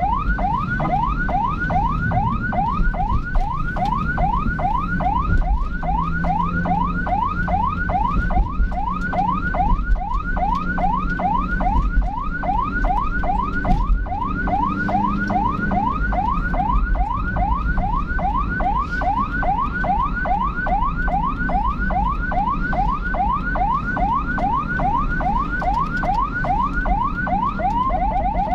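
Electronic emergency-vehicle siren in yelp mode: a rising sweep repeated about three times a second, over the low, steady rumble of the vehicle and road.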